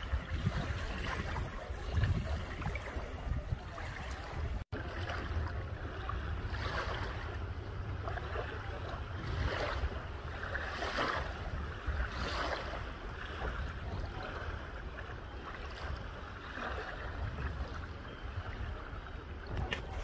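Small bay waves lapping onto a coarse sand and pebble shore, washing in softly every second or two, with wind rumbling on the microphone. The sound drops out for an instant about five seconds in.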